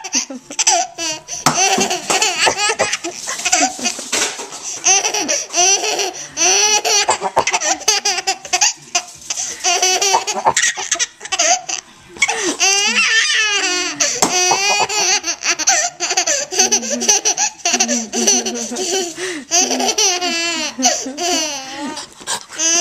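Baby boy laughing over and over in short pitched bursts of giggles and belly laughs.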